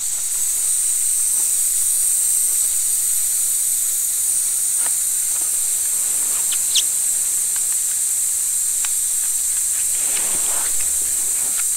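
LPG gas burner hissing steadily, the hiss starting suddenly as the gas is turned on, with a few faint ticks over it.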